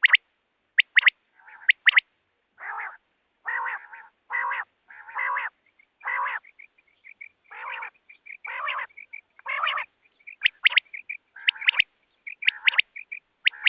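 Quail calling over and over. Sharp, high double notes alternate with harsher, fuller calls about once a second, with quick soft chips in between.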